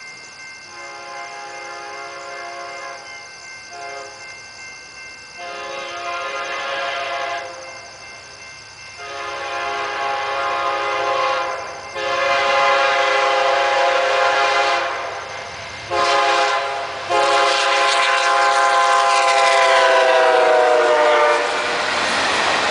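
Amtrak locomotive's air horn sounding a series of long blasts and one short one as the train approaches a road crossing, growing louder. The last long blast drops in pitch as the locomotive passes, and then the rushing noise of the passenger cars going by at speed takes over near the end.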